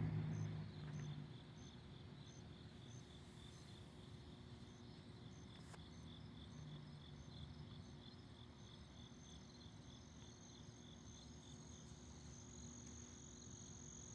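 Crickets chirping steadily at night, about three chirps a second, with a continuous high insect trill joining in over the second half. A low rumble fades out in the first second or so.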